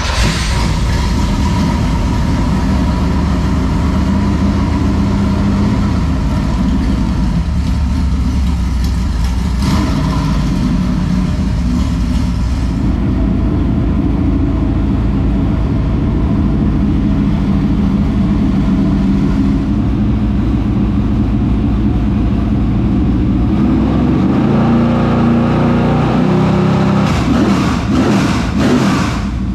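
Dirt late model race car's V8 engine running loud on fresh oil, with a steady lumpy idle. It is revved up and down a few times near the end.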